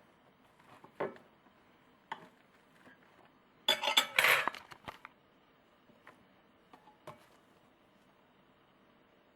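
Light knocks and clinks of dishware being handled, with a louder, crackling, scraping rattle lasting about a second near the middle.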